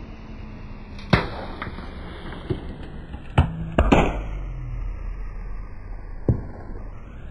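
A full aluminium can of fizzy soda crushed under a slowly rolling car tyre. There are sharp cracks and pops as the can gives way: one about a second in, the loudest around three and a half to four seconds as it bursts and sprays, and another near the end.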